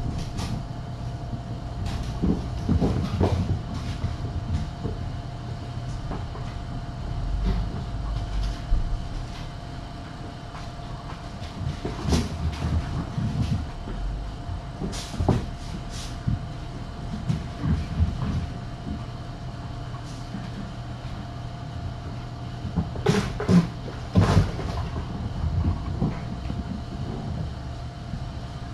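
Kittens running and playing on the floor: irregular thuds, bumps and clicks, over a steady electrical hum.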